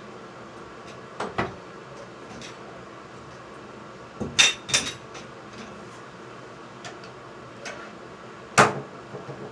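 Sharp metallic clinks and taps from tools and bathtub faucet hardware knocking together as the hot-water knob is worked off: a light pair early, a loud ringing double clink about halfway, and another sharp one near the end.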